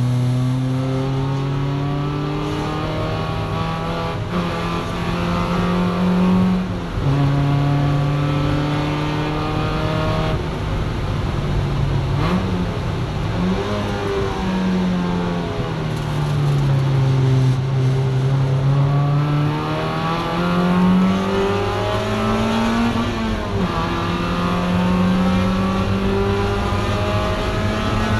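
Mazda Miata race car's four-cylinder engine heard from inside the cabin, pitch rising under acceleration and dropping sharply about seven seconds in as it shifts up. Around twelve to thirteen seconds in, quick rev blips come under braking, the revs then sag through a corner and climb again toward the end, with a brief dip near twenty-three seconds.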